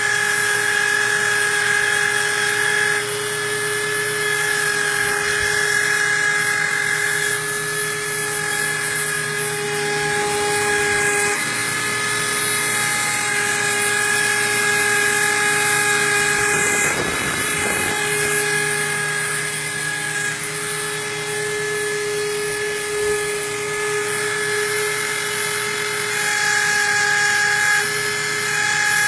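Motor-driven engraving machine running: steady whining tones that shift or drop out every few seconds over a constant hiss, with a rougher, noisier stretch about seventeen seconds in.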